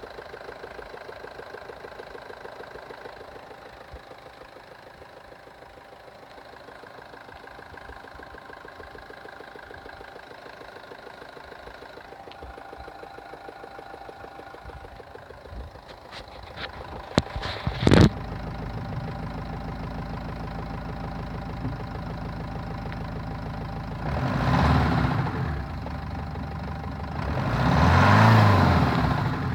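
Car engine idling with a fine, regular knocking. About two-thirds of the way through there are a few sharp clicks and a bang, after which the engine sounds louder and deeper. It is revved briefly twice near the end.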